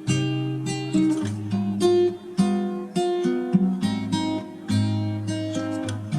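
Background music: a strummed acoustic guitar playing rhythmic chords.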